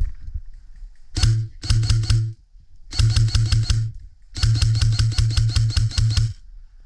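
Airsoft electric gun (AEG) firing on full auto in four bursts, the last and longest about two seconds: rapid even clicks of the gearbox cycling over the whine of its motor.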